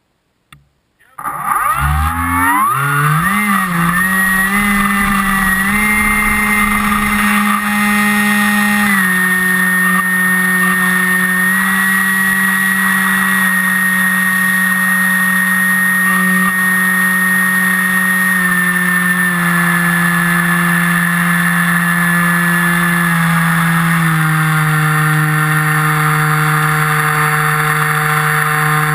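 FPV model aircraft's motor and propeller, heard from on board. It starts about a second in, rises in pitch over the first few seconds as it is throttled up, then runs at a steady pitch. It steps down a little in pitch three times later on, as the throttle is eased.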